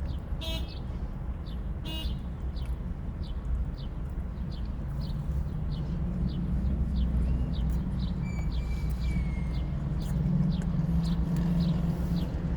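A low, steady rumble that grows a little louder partway through, with a bird chirping over it about twice a second and a short thin whistle near the middle.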